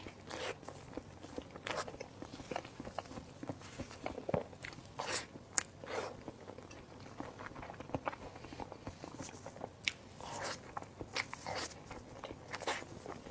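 Close-miked eating sounds: a person biting and chewing soft food, with irregular wet smacks and clicks of the mouth.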